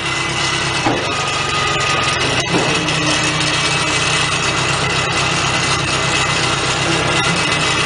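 Tractor engine running steadily at idle, with a couple of faint knocks.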